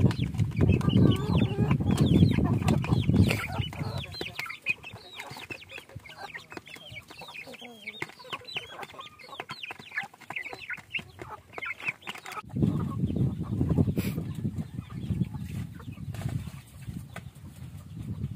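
Young Basilan chickens peeping and clucking while they feed from a tray of dry feed, many short high chirps overlapping; the chirping thins out after about twelve seconds. A low rumble comes and goes under them, loudest at the start and again in the last third.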